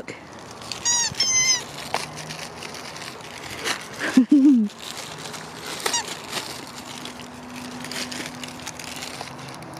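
A squeaky rubber turkey dog toy squeaking twice about a second in, while its plastic wrapping crinkles and crackles as it is pulled off. A brief low vocal sound comes around the middle.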